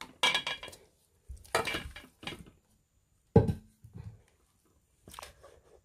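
Cooked barley being scooped with a plastic spoon and dropped into a stainless steel pot: a series of short scrapes and knocks against the metal, the loudest a sharp knock about three and a half seconds in.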